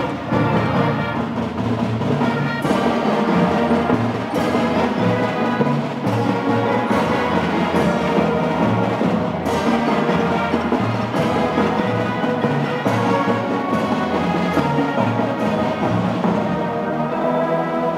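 Children's marching band playing a tune: held brass chords over a pulsing bass line, with percussion hits now and then.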